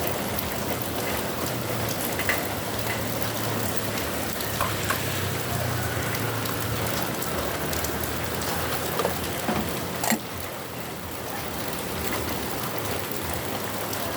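Heavy rain falling steadily, with a few sharp clicks and knocks scattered through it, the loudest about ten seconds in.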